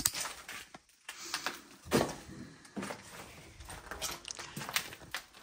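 Irregular footsteps with small knocks and clicks, sharpest right at the start and about two seconds in.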